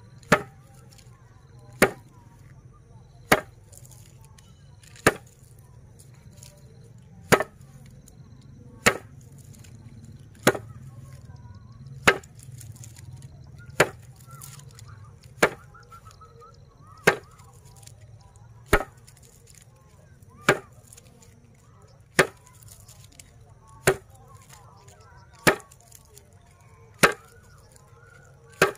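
A bundle of dried grass stalks with seed heads beaten down hard onto a flat board, one sharp smack about every second and a half, knocking the seed and chaff loose by hand-threshing.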